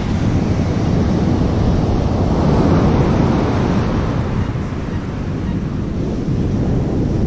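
Heavy ocean surf washing in, with wind rumbling on the microphone; the wash swells about two to three seconds in.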